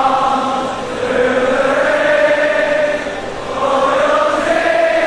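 Many voices chanting together in unison, in long held lines with short breaks about a second and three seconds in.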